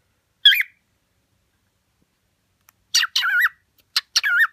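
Pet cockatiel chirping: one short warbling whistle about half a second in, then a quick run of wavering, up-and-down whistled calls in the last second and a half.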